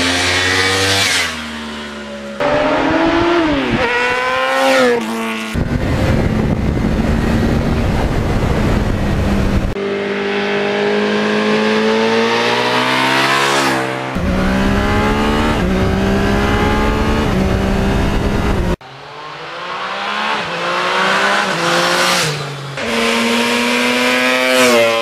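Motorcycle engines revving hard as bikes accelerate past. The pitch climbs and falls back at each gear change, in a string of clips that cut abruptly every few seconds. The last is a Yamaha RD400's two-stroke twin.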